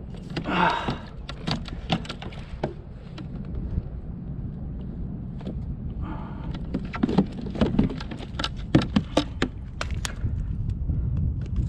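Scattered clicks, knocks and rattles of fishing gear and a landed sea bass being handled aboard a kayak, over a steady low rumble. The knocks come thickest about seven to nine seconds in.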